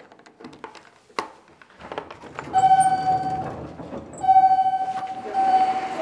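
A few sharp clicks, then a rumbling noise over which a steady pitched tone sounds three times, each lasting about a second and fading as it goes.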